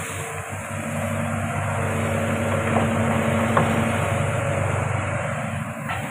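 Hitachi Zaxis 110 excavator's diesel engine running steadily, swelling a little in the middle, with a few light knocks.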